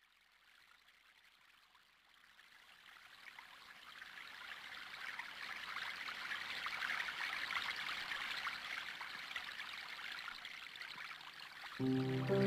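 Flowing water like a running stream, an even rushing trickle that fades in gradually over the first few seconds and then holds steady. Music with sustained notes comes in just before the end.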